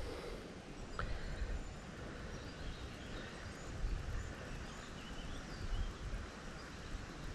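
Wind rumbling on the microphone by a creek, with a few faint bird chirps and one short click about a second in.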